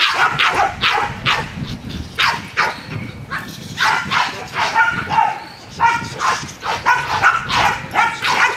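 Dogs barking in rapid, repeated barks, about two or three a second with no pause. These are protective guard barks at a decoy trying to reach the man they are guarding.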